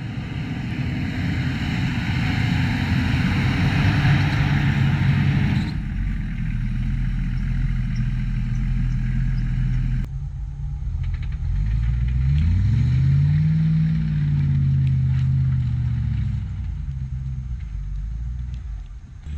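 Off-road 4x4's engine running under load, its revs climbing and then falling away about two-thirds of the way through. The sound changes abruptly twice, with a rushing noise over the engine in the first third.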